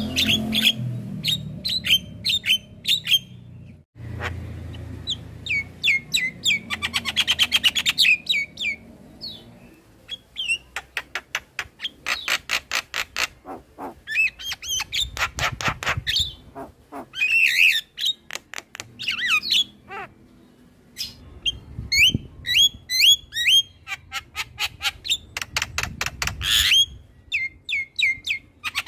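Javan myna singing: bursts of fast chattering rattles and short rising whistles, with brief pauses between phrases.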